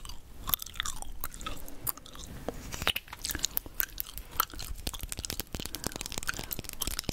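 Chewing gum close to the microphone: a steady run of irregular wet clicks and smacks.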